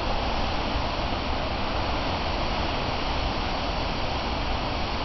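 Heavy storm surf breaking on rocks and a harbour wall: a steady rush of waves and churning foam, with wind buffeting the microphone in a low rumble.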